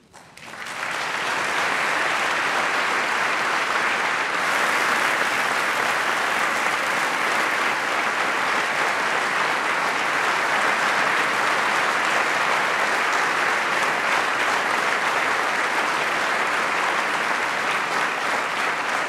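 Audience applauding: the clapping builds up within the first second and then holds steady.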